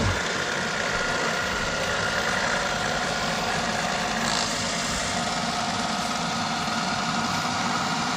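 Roborock S8 robot vacuum running: a steady motor and fan hum with a few constant tones, and a short faint hiss about four seconds in.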